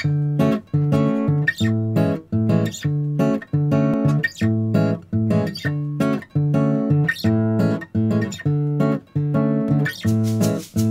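Background music: guitar chords played in a steady, even rhythm.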